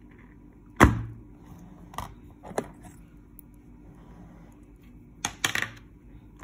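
Hard plastic HIMI gouache paint case being handled and unclasped: a sharp plastic knock about a second in, two lighter clicks, then a quick clatter of clicks near the end.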